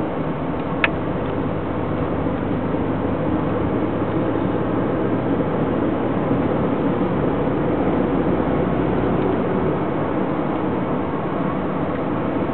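Steady vehicle noise heard from inside a car's cabin, with a single sharp click about a second in.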